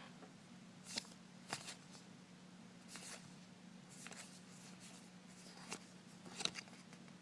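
Faint rustling and flicking of baseball trading cards being handled and shuffled through, with sharper flicks about a second and a half in and near the end, over a low steady hum.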